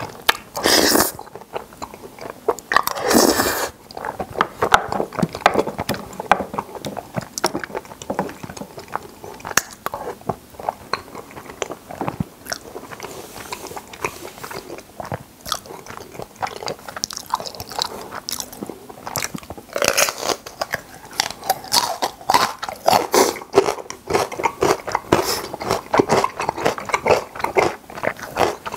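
A person eating carbonara spaghetti right at the microphone. Two noisy slurps of creamy noodles in the first few seconds, then steady wet chewing and mouth clicks.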